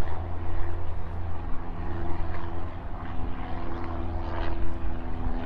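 A steady low mechanical drone with a deep rumble underneath and several humming tones held at one pitch.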